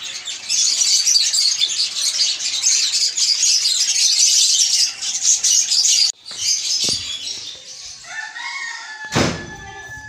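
A crowd of small cage birds chirping and chattering densely, breaking off sharply about six seconds in and going on more faintly. Near the end a chicken gives a drawn-out call, and a sharp thump sounds just after nine seconds.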